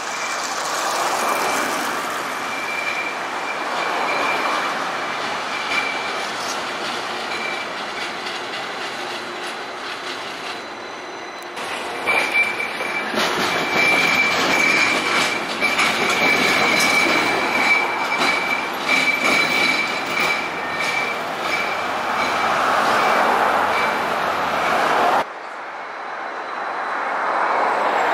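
Tram wheels squealing on curved street track, a high steady screech over the running rumble, with a string of clicks as the wheels cross rail joints and points while the tram passes close. The sound changes abruptly twice, near the middle and near the end.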